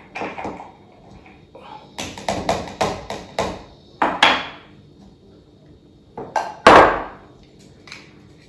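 A spoon scraping and tapping inside a small plastic food processor cup while minced garlic is scooped out. There is a run of quick taps about two seconds in and a single louder knock near the end.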